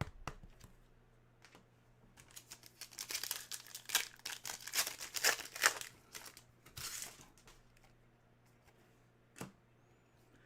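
Plastic trading-card pack wrapper being torn open and crinkled in the hands, a dense crackly rustle lasting several seconds, then a shorter crinkle and a single click.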